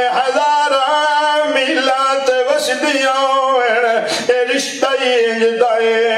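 A man singing a religious recitation unaccompanied, in long held notes that waver in pitch and break off between phrases.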